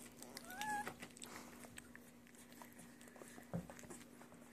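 A young puppy gives one short whimper that rises and then levels off, about half a second in. After it come faint scattered clicks and a soft thump past three seconds as the litter squirms, over a steady low hum.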